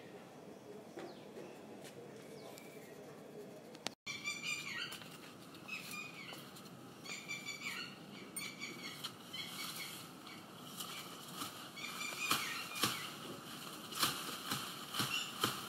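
Faint steady outdoor background, then birds chirping over and over in short calls. From about twelve seconds in, bamboo leaves rustle and crackle sharply as the branches are pulled.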